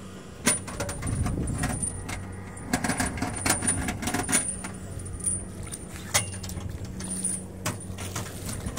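Kubota tractor's diesel engine running under load while the tractor is stuck in mud. It is louder between about one and four and a half seconds in. Several sharp metallic clanks and rattles sound over it.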